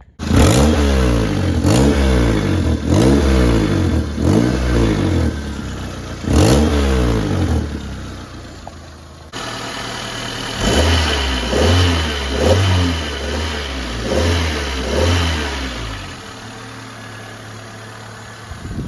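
Four-cylinder engine of a 1997 Toyota Corolla being blipped repeatedly, the revs rising and falling in quick runs, then settling back to idle near the end. This is a test of a freshly replaced exhaust donut gasket and of a pipe newly spaced off the cross member.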